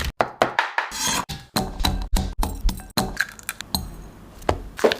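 Kitchenware clinking and knocking: a quick, irregular run of sharp strikes of glass, dishes and utensils being handled.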